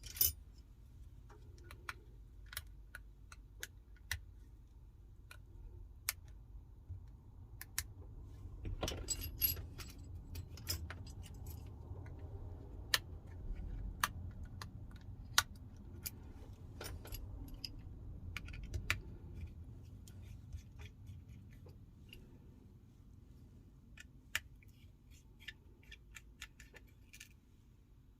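Scattered small clicks and light metallic taps of repair tools working on the internals of an iPhone 12, with flex connectors and small parts being handled, over a low steady hum.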